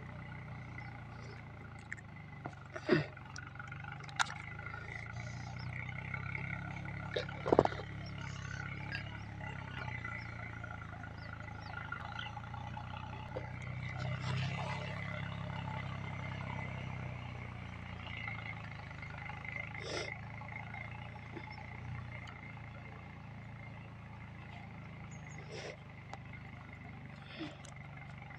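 Steady low outdoor hum with a few sharp clicks and taps from the small metal contacts and plastic housing of a motor starter being handled, the loudest in the first eight seconds.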